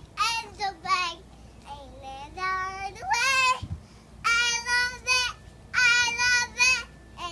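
A toddler girl singing in a high voice, in short phrases broken by pauses, with several long held notes.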